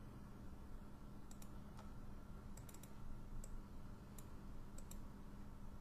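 Faint computer mouse clicks, a scattering of single and paired clicks, over a low steady hum.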